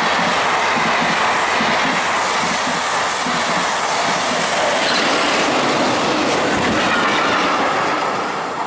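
SBB passenger train passing close at speed: loud, steady rolling noise with a regular clatter of wheels about twice a second. Midway a second train, a red Re 4/4 II electric locomotive hauling works wagons, passes the other way, and the noise eases slightly near the end as the passenger train draws away.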